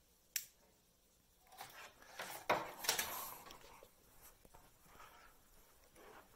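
A single sharp click of the LED lighting's on/off switch about half a second in, then soft rustling and scraping from handling.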